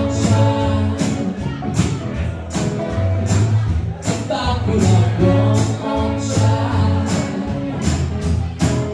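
Small live band playing an instrumental passage: saxophone holding long melody notes over strummed electric and acoustic guitars, with a steady percussive beat.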